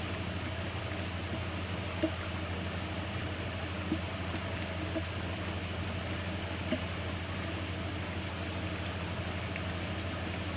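Jambalaya simmering in a pan while a wooden spatula stirs it, giving short light knocks every second or two, over a steady low hum.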